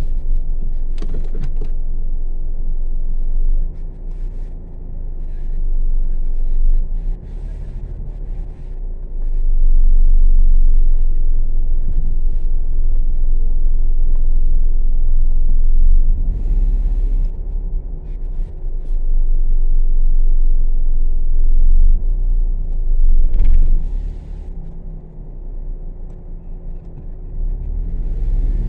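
Car running at low speed, heard from inside the cabin: a low rumble of engine and tyres that swells and eases as it manoeuvres. A few brief higher-pitched noises break in now and then.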